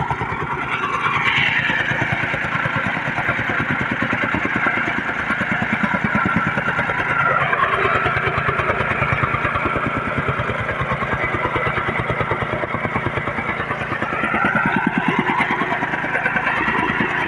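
Gasoline tamping rammer running, its small engine buzzing while the foot plate pounds loose soil in a rapid, steady beat.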